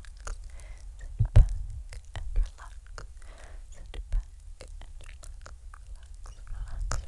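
Close-miked mouth sounds: soft breathy whispering with many sharp wet clicks, and a few louder low thumps, the loudest a little over a second in.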